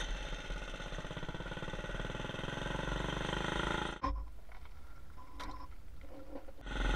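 Predator 212 minibike engine running under way, its pitch rising a little near the end as it revs up. About four seconds in it cuts off suddenly, leaving a much quieter stretch with a few faint clicks.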